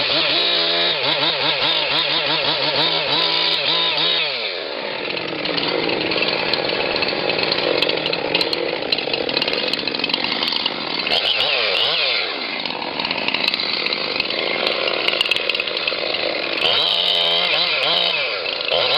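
Two-stroke chainsaw running at high speed, its engine pitch dropping and climbing back several times as the load changes.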